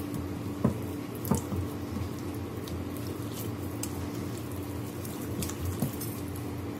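A hand squishing raw chicken drumsticks through a wet egg-and-spice marinade in a glass baking dish: soft wet squelching with a few faint clicks, over a steady low hum.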